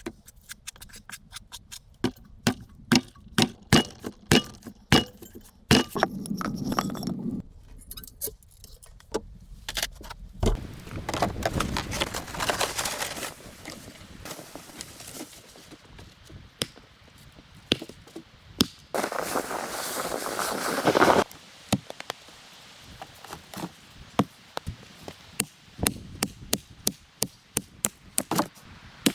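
Irregular knocks, thunks and clinks of objects being handled, some with a brief ringing after the strike. Two stretches of steady noise lasting about two seconds each come about a third of the way in and, louder, about two thirds of the way in.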